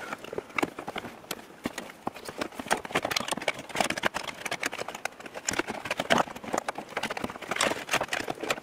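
Irregular clicks and knocks of plastic and metal parts being handled at a 2013 Chevrolet Silverado's opened steering column, during a gear selector replacement. The clicking is busiest in the middle.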